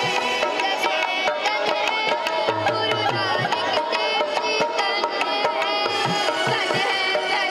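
Indian devotional music with tabla drumming under a bending melodic line from string or reed instruments.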